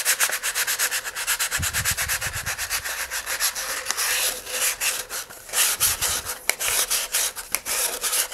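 Sandpaper worked by hand around the inside of the rear edge of a cardboard model-rocket body tube, in quick back-and-forth scratchy strokes at about five a second. The tube's inside is being sanded out so that the stage coupler slips in and out loosely.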